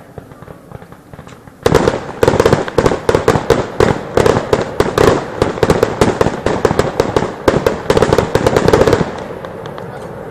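Fireworks: a rapid, dense barrage of bangs and crackles starts about one and a half seconds in, runs for about seven seconds and stops abruptly.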